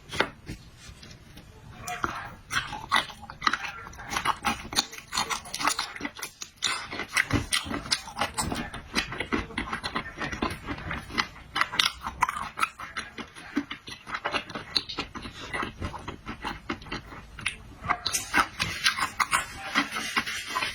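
Close-up mouth sounds of someone eating marinated shrimp: quick, irregular smacking and chewing clicks that start about two seconds in, with a brief lull partway through.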